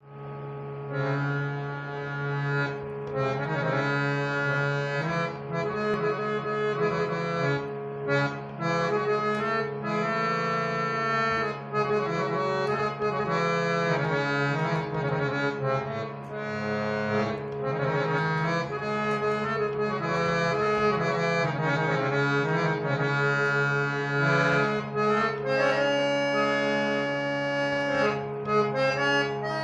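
Harmonium playing a solo melody in raga Kirwani, the melody stepping from note to note over low drone notes held steadily throughout.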